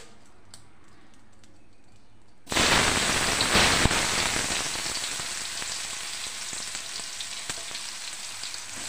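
Hot oil in a kadai with a few faint pops, then about two and a half seconds in a handful of sliced bitter gourd goes into the oil and it bursts into loud sizzling, which eases into steady frying.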